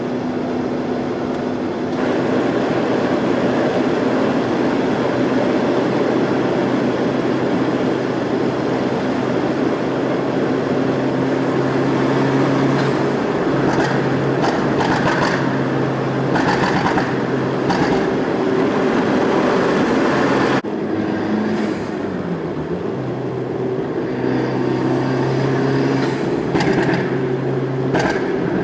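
Tuned (stage 2) Fiat Punto Evo 1.4 MultiAir engine and exhaust driving through a tunnel: a steady engine note over road noise, with bursts of exhaust pops and crackles in the middle and again near the end.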